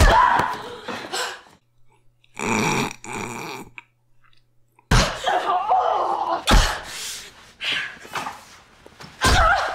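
Fight-scene soundtrack of a TV drama: a brawl between two women, with thuds and scuffling. Heavy blows land at the start, about six and a half seconds in and again near the end, with a short near-silent break early on.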